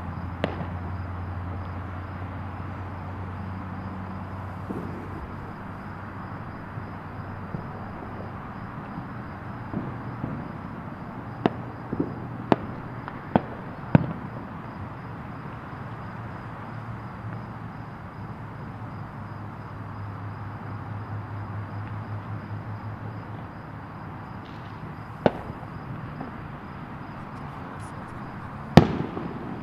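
Distant aerial fireworks bursting as sharp, scattered bangs: one about half a second in, a quick run of about five bangs around the middle, then two more late on, the last the loudest. A steady rumble of background noise lies underneath.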